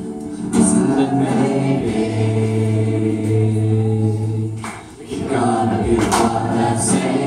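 Live amateur singing: several voices hold long notes in harmony, with a brief drop in loudness about two-thirds of the way through.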